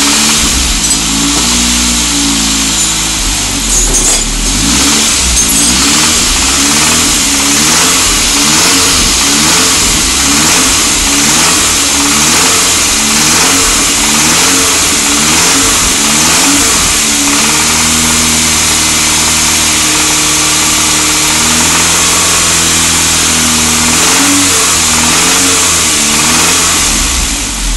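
Saab 9000 engine revved up and down over and over, about once a second, then held at a steady raised speed for several seconds before wavering again. Above about 1500 rpm it makes a knocking noise that the owner has been told is bottom-end knock, though he wonders whether the timing chain or its tensioner is to blame.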